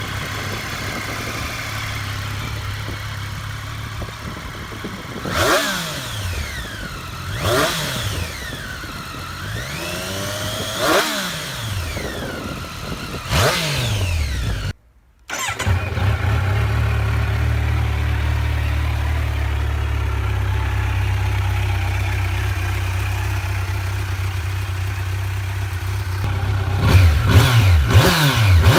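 Motorcycles going past at speed four or five times, the engine pitch sweeping up and then dropping as each passes. After a sudden cut, a motorcycle engine idles steadily, then is revved in quick blips near the end.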